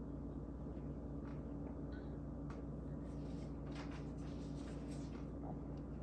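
Faint light splashing and clicking of a grackle's beak in a metal bowl of water as it dunks peanuts, bunched a few seconds in, over a steady low hum.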